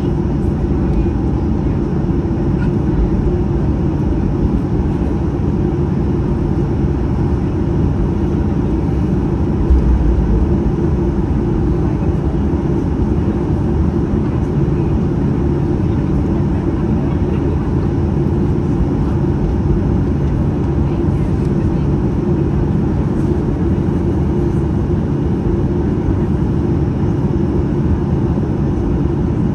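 Steady cabin noise of a Boeing 737-800 from inside the passenger cabin, its CFM56 engines running with a constant hum, and one low thump about ten seconds in.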